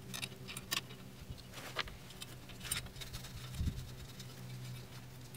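Faint, scattered light clicks and taps of a bolt and a dirt bike's metal engine guard being handled and fitted by hand, with a dull thump about three and a half seconds in.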